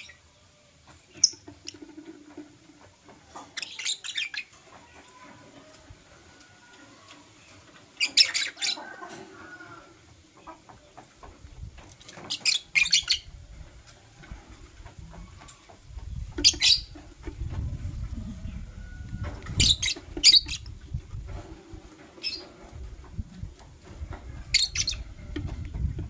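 Caged lovebirds giving short, shrill chirps in brief bursts, one every few seconds. A low rumbling noise runs underneath from about halfway through.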